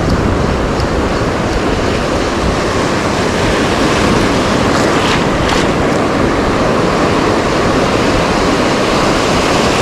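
Ocean surf washing on the shore, with wind buffeting the microphone: a loud, steady rush.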